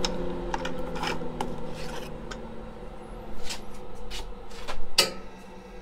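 Wooden rail scraping and knocking against a router-table coping jig, with scattered sharp clicks and short rubbing strokes, while a steady hum fades away in the first couple of seconds.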